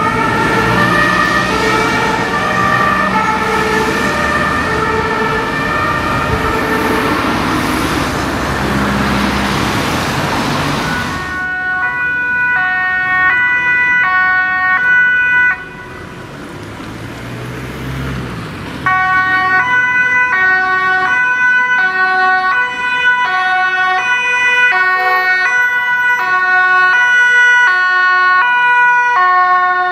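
German two-tone sirens (Martinshorn) on fire engines going past, each stepping back and forth between two pitches. For the first part they are mixed with heavy truck engine and tyre noise. The sirens cut off suddenly about halfway, leaving a few seconds of quieter low engine rumble, then several sirens at different pitches sound together, overlapping.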